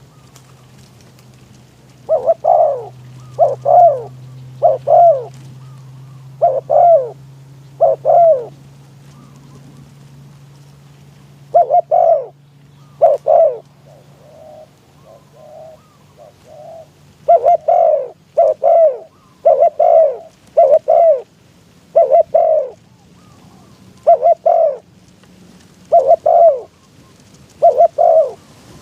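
Spotted dove cooing loudly and repeatedly, about one call a second in two runs, with a few softer short notes in the gap between them. A faint low steady hum lies underneath and fades out about halfway through.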